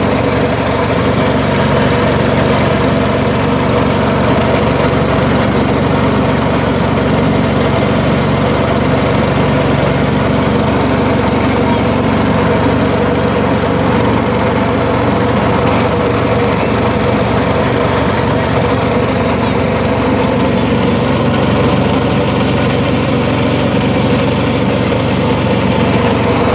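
Small air-cooled boat engine running steadily, a constant mechanical drone with no change in speed.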